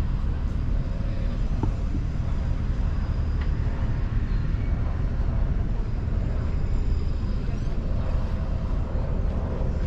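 Steady low rumbling outdoor noise that neither rises nor falls, with no distinct events in it.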